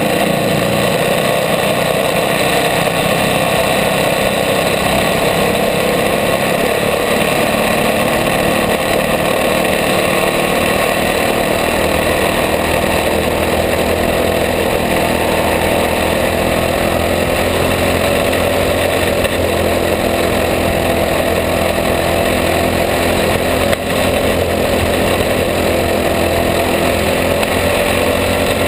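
Racing kart engine running hard on track, a loud, continuous drone whose pitch shifts slightly as the throttle varies.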